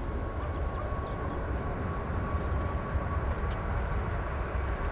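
Jet airliner engines running: a steady low rumble with a faint steady whine, which sounds quiet.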